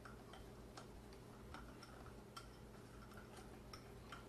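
Wire whisk stirring a thick starter batter in a glass bowl, giving faint, irregular clicks as it knocks the glass, roughly every half second.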